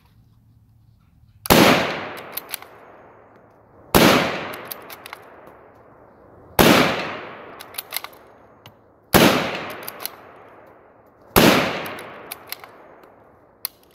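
Five shots from a Ruger Gunsite Scout bolt-action rifle, about two and a half seconds apart, each ringing out with a long echo. Short clicks follow each shot as the bolt is run quickly between shots.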